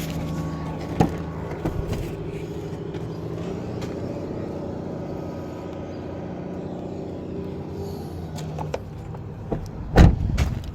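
A vehicle engine idling steadily, stopping about three-quarters of the way through, followed near the end by a single loud slam.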